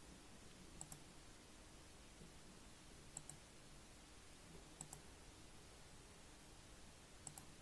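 Computer mouse clicking: four quick double clicks, a second or two apart, in near silence.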